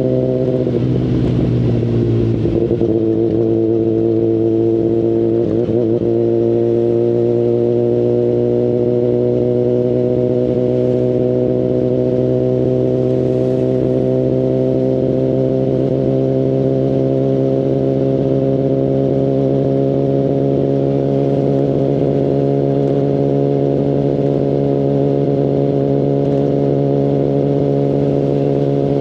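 Kawasaki Ninja ZX-10RR inline-four running through an Akrapovic Evolution carbon full exhaust system while riding. The engine note dips in pitch over the first two seconds, then climbs slowly and steadily as the bike gathers speed.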